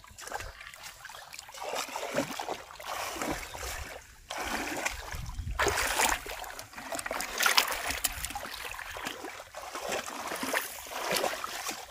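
Irregular splashing and sloshing of shallow, muddy paddy water as hands grope and churn through it among the rice plants while feeling for fish.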